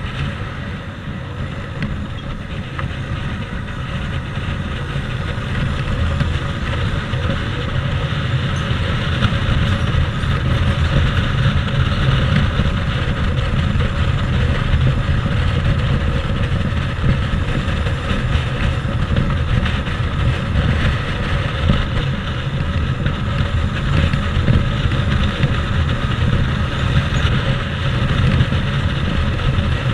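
Motorbike riding on a road, heard from the handlebars: a steady engine rumble mixed with wind and road noise, growing louder over the first ten seconds or so, then holding steady.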